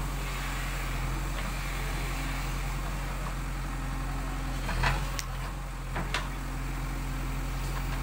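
JCB 3DX backhoe loader's diesel engine running steadily while the backhoe arm digs. A few short, sharp knocks sound about five and six seconds in.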